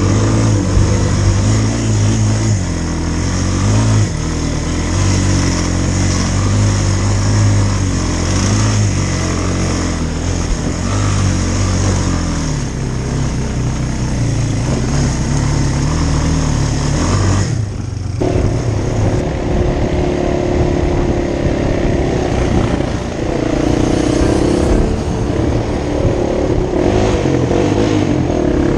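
Engine running, its pitch stepping up and down as it is revved, with a brief break about two-thirds of the way in, after which it sounds different.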